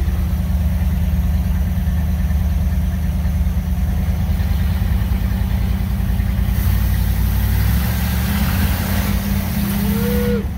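The 1977 Dodge B200 van's 318 V8 is heard from inside the cab through its new performance exhaust. It runs steadily, then its pitch climbs from about eight seconds in as the van picks up speed. A hiss of tyres on gravel joins about six and a half seconds in, and a short squeak rises and falls near the end.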